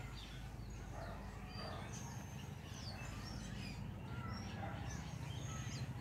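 Several small birds chirping and whistling in the trees, short calls overlapping from many directions, over a steady low rumble.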